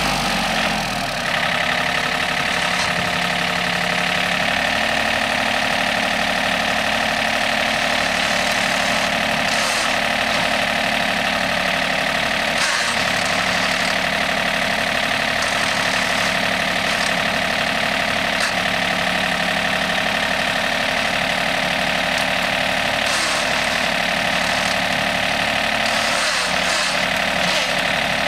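John Deere 4300 compact tractor's three-cylinder diesel engine running steadily at low revs, with a short dip in the low rumble about a second in.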